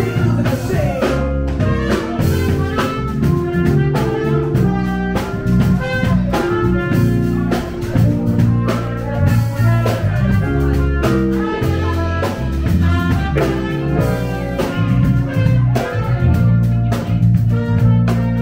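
A band playing music with a steady beat.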